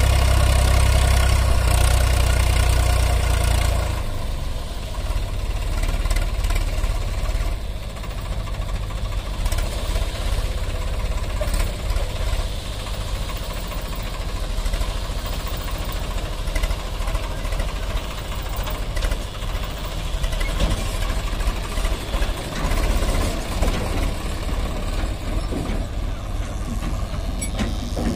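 Swaraj 744 FE tractor's three-cylinder diesel engine held at high revs for about four seconds while the hydraulic lift tips a loaded trolley, then dropping back to a lower, uneven running speed.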